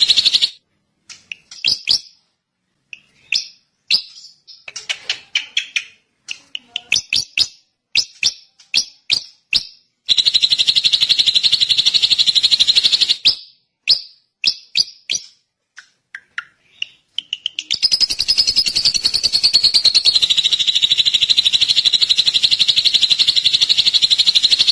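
Drongo calling: a string of short, sharp chirps, then long, rapid buzzing trills, one about ten seconds in and another from about eighteen seconds on, each stopping abruptly.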